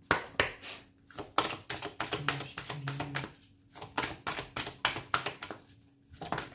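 A deck of oracle cards being shuffled by hand: a quick, irregular run of card slaps and clicks.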